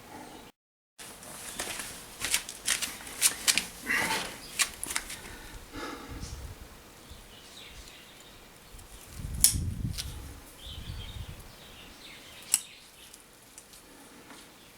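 Wire cutters snipping and clicking as training wire is cut off a bonsai, a quick run of sharp clicks, then a low handling thump and one more click later.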